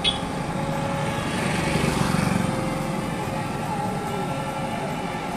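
JCB backhoe loader's diesel engine running steadily under load while its backhoe arm digs mud out of a drain, a continuous engine drone with a low rumble.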